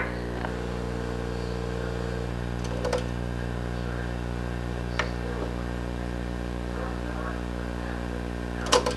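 Steady low electrical hum with several overtones. A faint held tone sounds early on, and a few faint clicks come and go.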